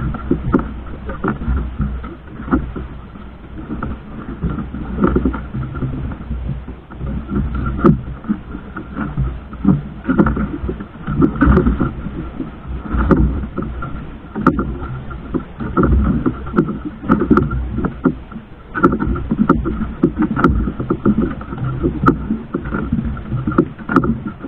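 Boat engine running with a steady low rumble and an unevenly surging level, with scattered short knocks.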